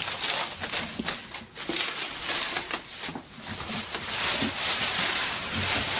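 Clear plastic wrap crinkling and rustling as it is pulled off a heat press by hand, with many sharp crackles and a denser rustle in the second half.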